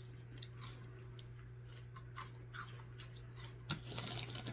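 Crunchy Buffalo Cheetos being bitten and chewed, in scattered short crisp crunches, a few louder ones near the end, over a steady low hum.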